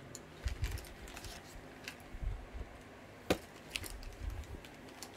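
Cardboard packaging being handled: scattered light taps, clicks and rubbing, with one sharper click about three seconds in.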